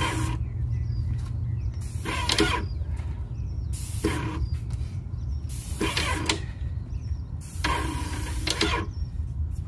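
Paint spray gun on a rented airless sprayer spraying primer onto a cabinet door in five separate passes, each a short hiss as the trigger is pulled and released, the longest near the end. A steady low hum runs underneath.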